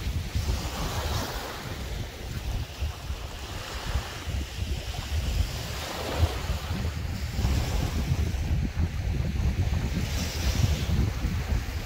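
Wind buffeting the microphone with a steady low rumble, over small sea waves washing against rocks. The waves come in hissing surges every few seconds.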